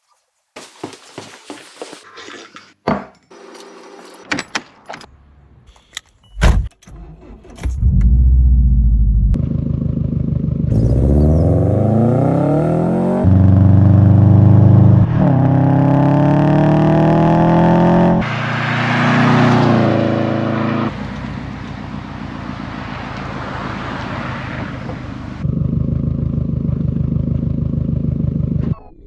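A series of sharp clicks and knocks, then a car engine running and accelerating, its pitch rising several times as if pulling through the gears, before settling to a steady drone.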